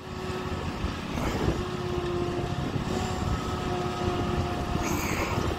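Cub Cadet zero-turn riding mower's engine running as the mower drives toward the listener. It grows louder over the first second, then holds a steady note with a thin whine above it.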